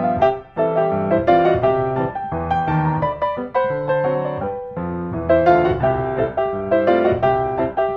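Background piano music playing a gentle melody over chords, dropping away briefly about half a second in.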